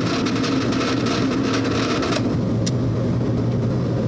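Drill press running with a steady motor hum while the bit cuts into a metal block, making a gritty cutting noise that stops abruptly about two seconds in as the bit comes out of the hole; the motor keeps running after.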